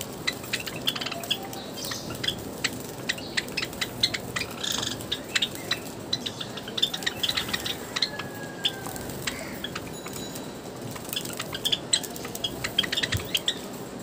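Java sparrows at a water bath: many short, sharp chip calls and clicks, scattered irregularly, over a steady low background hiss.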